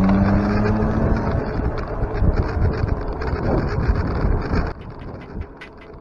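A motor vehicle's engine running with heavy wind and road noise; it starts abruptly and drops off sharply near the end to a quieter rushing background with small ticks.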